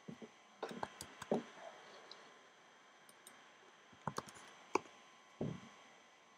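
Faint computer mouse clicks, a few in the first second and another cluster about four to five seconds in.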